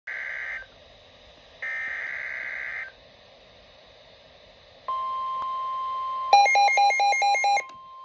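NOAA Weather Radio Emergency Alert System signal through a Midland weather alert radio: the buzzy SAME digital header bursts twice, then the steady 1050 Hz warning alarm tone starts about five seconds in. For about a second the radio's own alert beeps rapidly and loudly over it, signalling a warning-level alert, here a flash flood warning.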